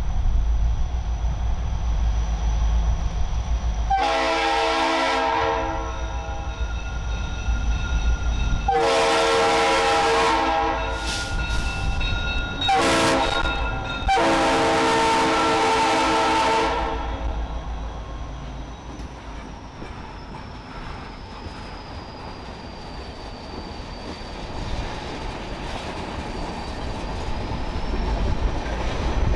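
Diesel locomotive of a freight transfer train sounding its multi-chime air horn in the grade-crossing pattern: two long blasts, a short one, then a long one. Under the horn the engine rumbles deeply; after the horn the rumble eases off, then swells again near the end as the train rolls by.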